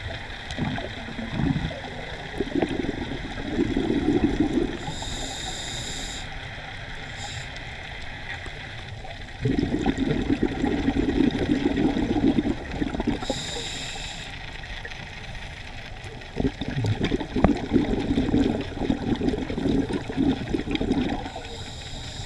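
Scuba diver breathing through a regulator underwater in slow breaths. Long bubbling, gurgling exhalations alternate with short hissing inhalations.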